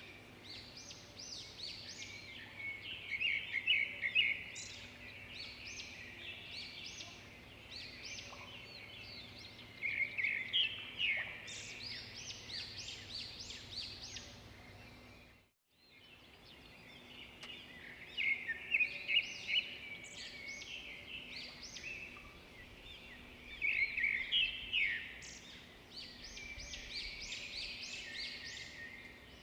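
Songbirds chirping and singing, a busy mix of short high calls and quick trills. The sound cuts out completely for a moment about halfway through, then the birdsong resumes.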